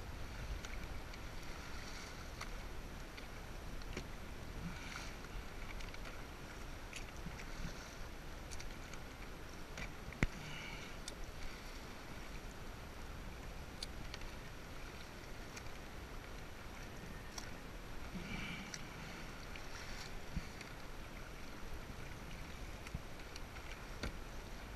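Choppy water splashing and sloshing around a sit-on-top kayak as it is paddled, with small ticks of spray and paddle splashes. A single sharp knock about ten seconds in.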